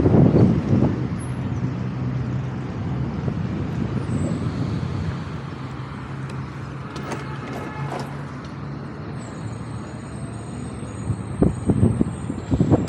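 Wind rushing over the microphone and road and traffic noise while riding a nearly silent electric motorcycle through town, with uneven gusts of wind buffeting near the end.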